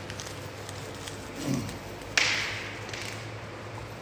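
Packaging being opened by hand: a sharp tearing swish about two seconds in that trails off over most of a second, with a brief low hum from a voice just before it.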